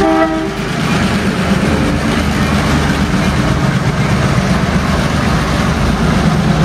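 EMD MP15AC diesel switcher locomotives, with 12-cylinder two-stroke EMD 645 engines, passing close by under power with a steady low rumble; a short horn blast sounds right at the start.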